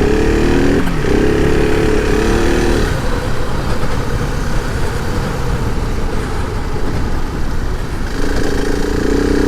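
Adventure motorcycle engine running under way on a sand track, its note dipping briefly about a second in, over a steady rush of noise.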